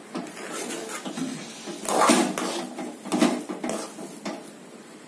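A spoon stirring thick rice-flour dough in a pan, with irregular scrapes and knocks against the pan; the loudest come about two and three seconds in. The roasted flour is being worked into boiling water as it cooks into a stiff, lump-free dough.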